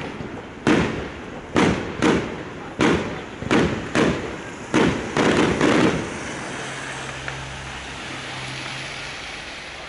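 Aerial fireworks bursting, about nine sharp bangs in quick succession over the first six seconds. They give way to a steady hiss and crackle for the rest of the time.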